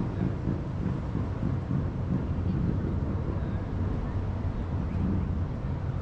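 Ocean waves breaking in the distance, heard as a steady low rumble, with wind on the microphone.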